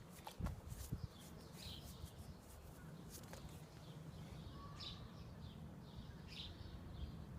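Faint outdoor ambience with birds chirping now and then over a steady low rumble; a few short knocks in the first second.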